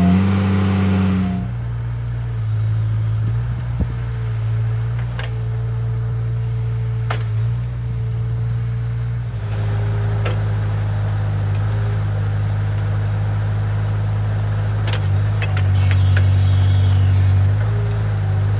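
Skid-steer loader's engine running steadily as its backhoe attachment digs a trench in rocky ground, with a higher steady whine above the engine and a few sharp knocks.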